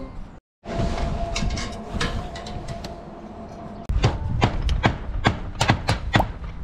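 Pliers working at a rusted TV antenna mast: sharp metallic clicks and knocks, a few at first, then about ten in quick succession in the last two and a half seconds over a low rumble that sets in about four seconds in.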